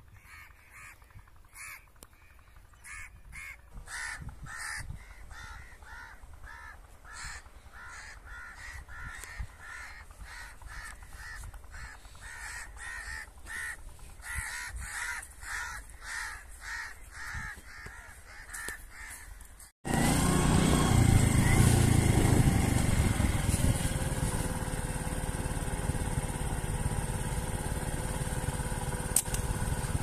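A crow cawing over and over, about two calls a second, getting louder over the first twenty seconds. About twenty seconds in it cuts off abruptly to a loud, steady vehicle engine running, heard from on board.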